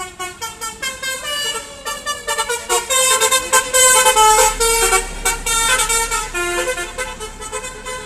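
Harapan Jaya coach's telolet horn: a loud multi-tone musical air horn playing a fast, jumping tune of short notes, at its loudest a few seconds in, over the bus's passing engine rumble.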